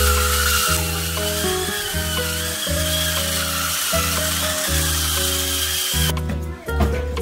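Handheld electric spin scrub brush whining as its rotating bristle head scrubs floor tiles, the pitch wavering with load, over background music with a steady beat. The scrubber sound cuts off about six seconds in, leaving the music.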